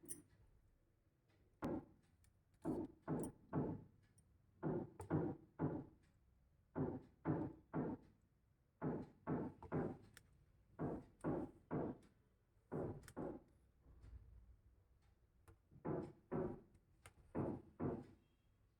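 Quiet, rhythmic hand-drum-like percussion: soft pitched beats, mostly in groups of three about every two seconds.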